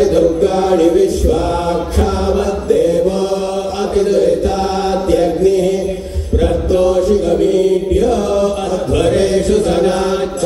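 A chanting voice over music, in short repeated phrases that rise and fall, with a steady low drone and a low beat underneath.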